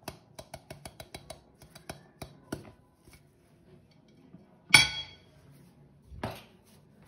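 Kitchen utensil clicking quickly and repeatedly against a bowl for the first couple of seconds, then one loud, ringing clink of dishware a little before five seconds in and a softer clatter about a second and a half later.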